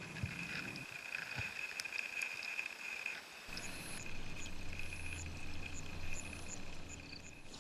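Rural field ambience: a steady high insect buzz with short high chirps repeating about twice a second. A low hum comes in about three and a half seconds in.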